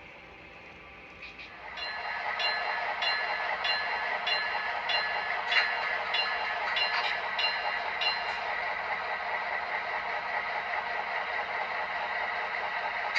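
Model diesel locomotive sound: a steady engine and running noise comes up about two seconds in. A bell is struck at an even beat, a little slower than twice a second, and stops about two-thirds of the way through.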